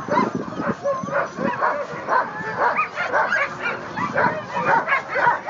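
Many sled dogs barking and yelping all at once, a dense, continuous chorus of overlapping high calls from teams harnessed at a mass-start line, eager to run.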